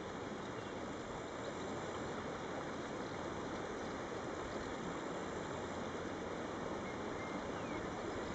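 Shallow river flowing over stones: a steady, even rushing of water.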